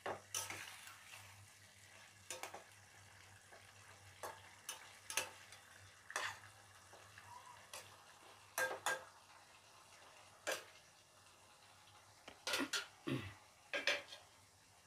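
Metal spoon stirring a thick curry in a steel kadai, knocking and scraping against the pan in short, irregular clinks. Several come in quick pairs in the second half.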